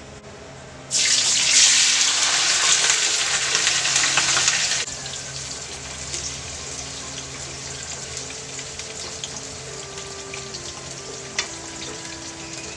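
Tofu cubes hitting hot oil in a wok: a sudden loud sizzle about a second in that drops off sharply about four seconds later, settling to a quieter steady sizzle. A wooden spatula stirring through the tofu gives a few light scrapes and taps.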